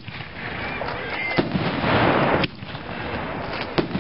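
Reloadable aerial firework shells, 5" Pounders, going off. There are sharp bangs about a second and a half in, at about two and a half seconds and near the end, with a stretch of loud hissing noise between the first two.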